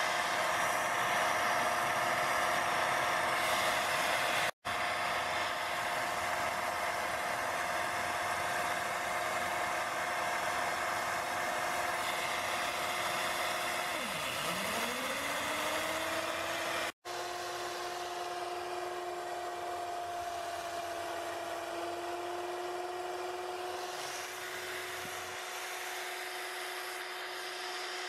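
3D-printed micro Pelton turbine spinning its small DC motor-generator with no load: a steady whine over the hiss of the water jet spraying on the runner. Just past halfway the whine drops sharply in pitch and then climbs back up to speed.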